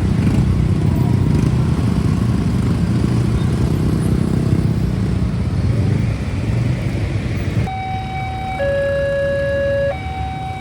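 Road traffic noise, then about three-quarters of the way through an electronic railway level-crossing alarm starts. It is a steady two-tone siren alternating between a higher and a lower note about once a second.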